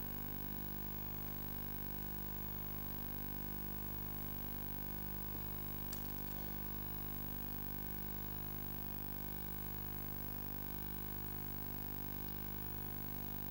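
Steady hum and hiss of the sound system, with a faint click about six seconds in.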